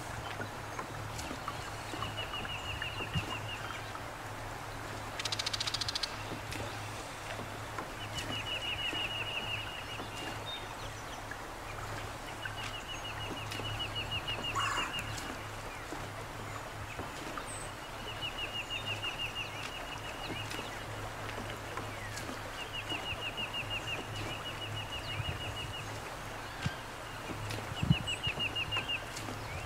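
A small songbird singing a short, rapid, dry trill over and over, each trill about a second and a half long and a few seconds apart, over a steady background hiss. About five seconds in there is one brief buzzy rattle, the loudest sound in the stretch.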